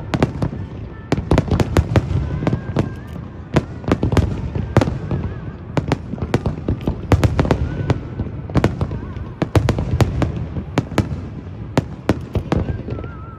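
Aerial fireworks: a rapid, continuous barrage of booming bursts and sharp cracks over a steady low rumble.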